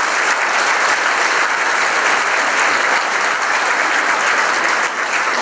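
Audience applauding: many hands clapping together in a steady, sustained round.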